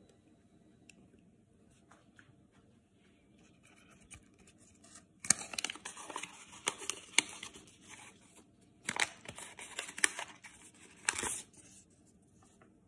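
Paper and plastic card packaging being handled and worked open, rustling and crinkling in three bursts, about five, nine and eleven seconds in.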